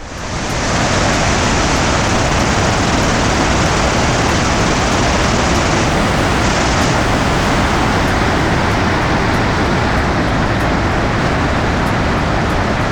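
Glacial stream water rushing, a loud, steady roar that swells in within the first second and holds even.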